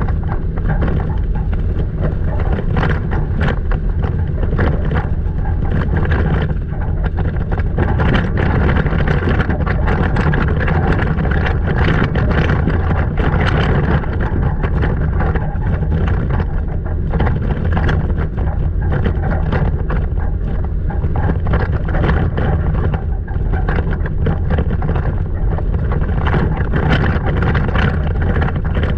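Toyota Tacoma driving slowly on a rough dirt trail: a steady low rumble from engine and tyres, with frequent short rattles and squeaks from the truck's body over the bumps.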